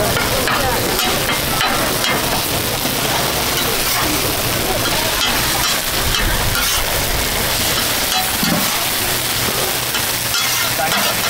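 Oyster omelettes of starch batter, egg, bean sprouts and cabbage sizzling on a flat-top griddle, with a wide metal spatula scraping and clacking on the plate as they are turned.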